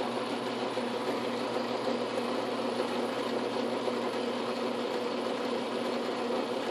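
Atlas lathe running with a steady hum, spinning a homemade line-bore cutter through a Logan lathe spindle bearing.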